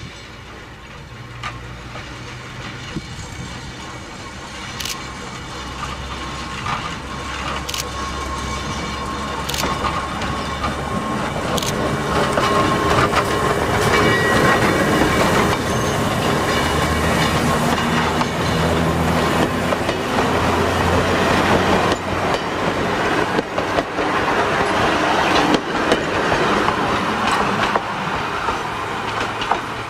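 Sacramento Northern electric interurban train, motor car 1005 leading, approaching and passing close by: steady motor hum and wheels rolling and clicking over rail joints. It grows louder over the first dozen seconds and stays loud as the cars go by.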